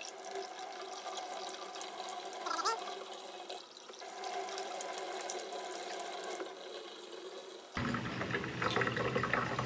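Kitchen faucet running while hands rub a bell pepper clean under the stream, with a brief lull in the middle as one pepper is swapped for the other. The water sound gives way to a different, fuller background noise near the end.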